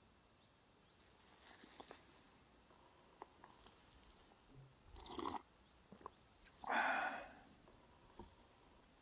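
Someone sipping a drink from a wooden cup: two short slurps, about five and seven seconds in, the second louder, with faint clicks of the cup being handled before them.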